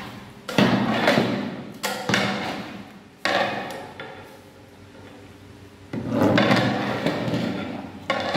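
Long metal ladle stirring thick curd rice in a large aluminium pot, knocking and scraping against the metal in several strokes. Each stroke starts sharply and fades off, with a quieter lull in the middle.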